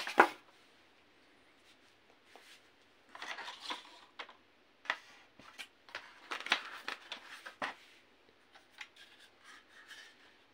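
Unpacking noises: styrofoam packing inserts rubbing against the cardboard box as they are lifted out, then the plastic airsoft gun being taken from its foam tray and handled, with scattered clicks and knocks. The loudest is a sharp knock right at the start.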